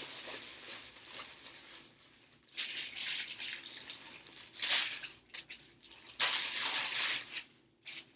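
Clear plastic packaging bag crinkling and rustling as it is handled, in three louder bursts over a fainter rustle.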